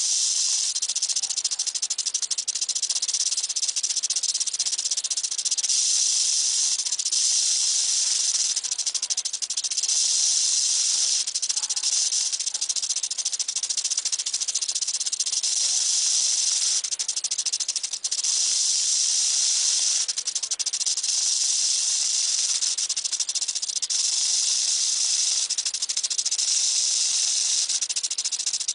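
Rattlesnake buzzing its tail rattle without pause, a steady high dry buzz that briefly dips and resumes every second or two: the snake's warning display.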